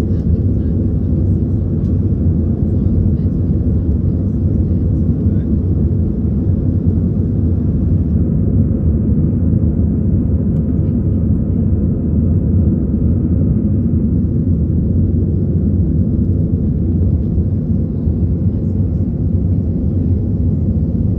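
Cabin noise inside an easyJet Airbus jet airliner climbing after takeoff: a steady, loud, low rumble of the engines and airflow, heard from a window seat over the wing.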